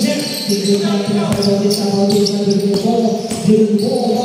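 A basketball bouncing on a hardwood court in a gym, a few separate knocks, over the steady noise of voices in the hall.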